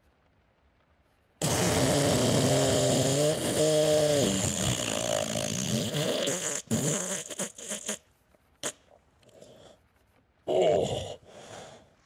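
A long, loud fart noise that starts suddenly about a second and a half in. It has a rasping flutter that wobbles in pitch, then breaks into shorter sputtering blasts, with a few more spurts near the end. It is the sound of a bout of diarrhea on the toilet.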